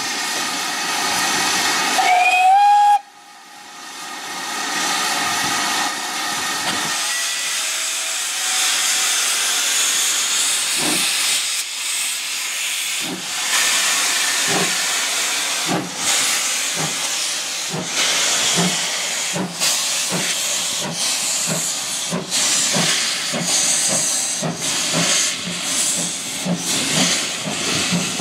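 Steam locomotive 9351, a GWR-type 2-6-0 Mogul, gives one short whistle about two seconds in that rises slightly in pitch, then steam hisses steadily. From about halfway through, its exhaust beats start slowly and quicken steadily as the train pulls away.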